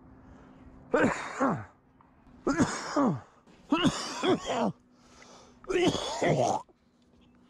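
A man coughing hard four times over about six seconds, a coughing fit brought on by the exertion of pushing a heavy e-bike up a steep hill; he is asthmatic and takes it as his breathing giving out.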